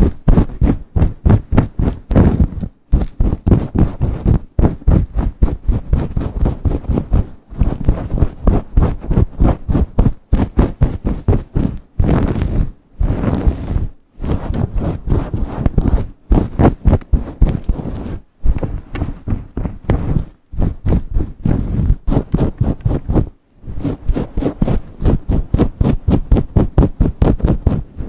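Long fingernails scratching and rubbing fast through hair on the scalp, close to the microphone: quick strokes several a second, with a few brief pauses.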